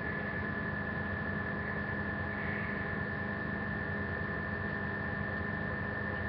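Steady electrical hum with a high-pitched whine over hiss, unchanging throughout: recording noise in a webcam's microphone.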